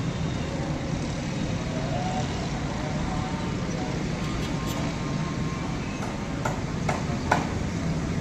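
Steady low motor-vehicle rumble, with a few short clicks about six to seven seconds in.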